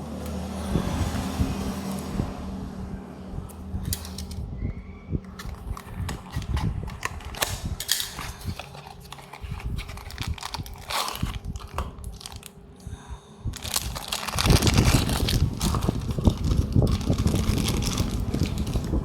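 Hands handling a small toy-car box and its packaging, with irregular crinkling and clicking over a steady low hum. From about 14 seconds in, a louder rubbing rumble takes over.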